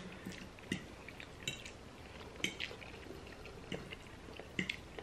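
Metal forks clinking and scraping on ceramic plates of pasta, a dozen or so light, scattered clicks, with faint wet chewing between them.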